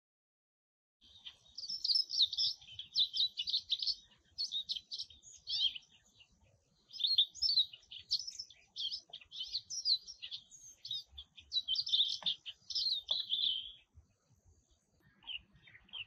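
A small songbird's quick, varied high chirps and twitters come in dense runs, with a short pause midway. They stop a couple of seconds before the end, and a few faint chirps follow.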